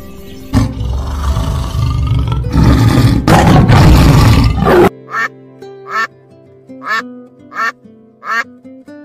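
A tiger roaring loudly for about four seconds, then a mallard quacking five times in an even rhythm, over background music.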